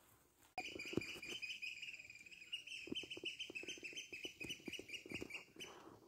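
Birds chirping in a fast, continuous run of high calls that starts abruptly about half a second in, with scattered faint low knocks underneath.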